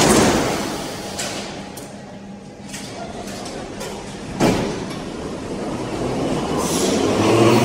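Sliding doors of a Soviet-built Budapest Metro M3 train slamming shut. A second sharp clunk follows about four and a half seconds in, then the train starts to pull away, its low rumble growing louder near the end.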